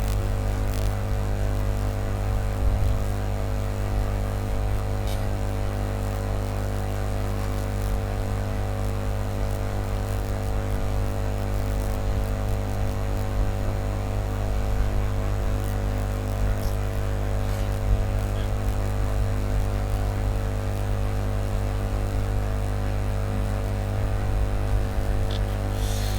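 Steady electrical hum made of several fixed tones, unchanging throughout, with a few faint clicks now and then.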